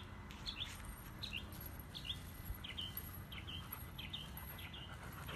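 A small bird chirping over and over, one short high chirp about every 0.7 s, over a faint low background rumble.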